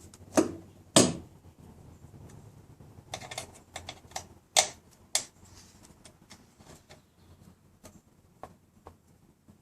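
Irregular small clicks and taps of an Allen key working in the security screws of a fuel door as they are tightened down. The loudest click comes about a second in, with a quick run of ticks a few seconds later and fainter ones after that.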